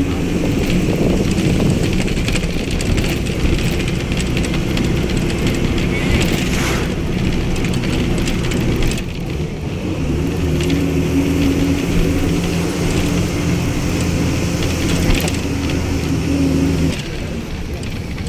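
Engine and road noise of a moving vehicle heard from inside it: a steady, low engine drone under a hiss of road and wind noise. The drone drops away about 17 seconds in.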